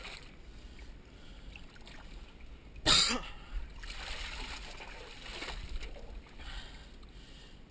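Shallow creek water splashing as a person climbs barefoot over wet granite boulders, with one louder splash about three seconds in followed by a softer wash of moving water.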